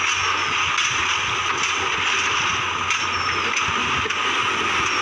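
Loaded Tata multi-axle tipper truck's diesel engine running steadily as the truck crawls through deep mud.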